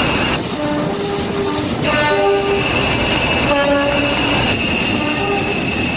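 Train horn sounding a series of short notes at changing pitches over the running noise of a train. A steady high-pitched whine runs above it and drops out briefly after about half a second.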